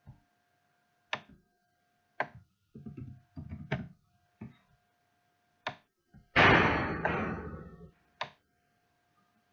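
Sharp single clicks and knocks from a computer keyboard and mouse being used, about one a second, with a quick cluster near the middle. About six seconds in comes a louder thump followed by a second and a half of fading rustling noise. A faint steady electrical whine runs underneath.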